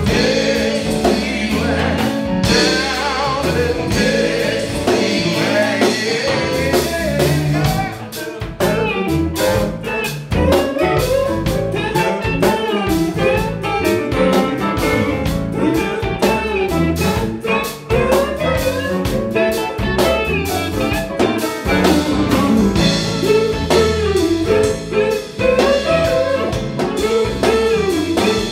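Live band music in a blues-rock style: electric guitar over bass guitar, drum kit and keyboards, with some singing.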